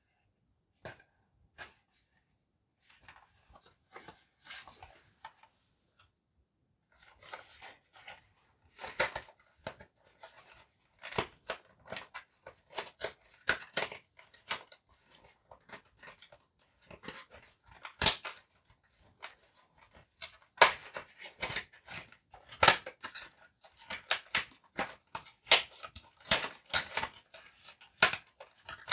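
A retail hand-warmer package being opened and its contents handled: irregular crackles, rustles and clicks of cardboard and plastic, sparse at first and much busier from about seven seconds in.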